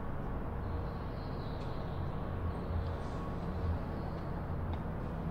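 Steady low rumble and hum of a large warehouse's room tone, with a faint high whine for a couple of seconds about a second in.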